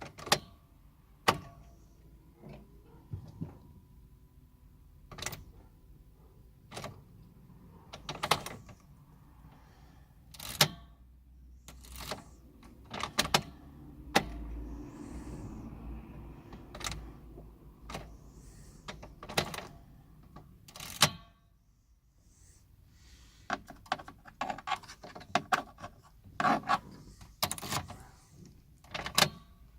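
Repeated sharp clicks as the ignition key of a 2003 Mercedes A160 petrol is turned to start again and again, some in quick clusters, with no engine cranking: a no-start in which the starter does not turn the engine over.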